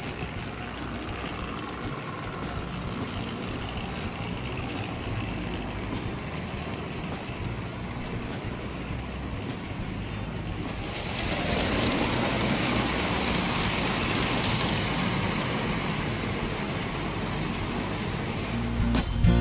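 Prewar Lionel 225E O gauge locomotive and its passenger cars running on tinplate three-rail tubular track: a steady rolling, rattling noise from the wheels and motor that grows louder about 11 seconds in as the train passes close.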